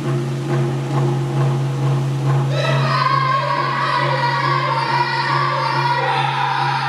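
First Nations hand drum beaten in a steady beat over a steady low hum, with a man's high, wavering voice singing an honor song that comes in about two and a half seconds in.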